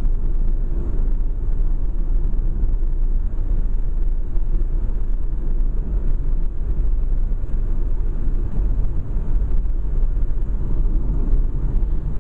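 Steady low rumble of a car driving on a paved road: engine and tyre noise with no change in pace.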